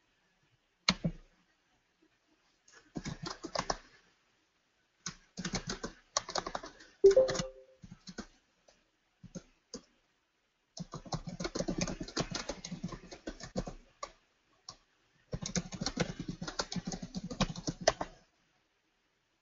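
Typing on a computer keyboard in several bursts of quick keystrokes, a chat message being written. A brief two-note chime sounds about seven seconds in.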